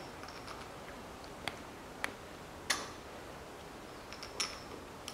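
Four scattered light metallic clicks and taps, the third the loudest, as a thermostat housing and its bolts are handled and set in place on an engine.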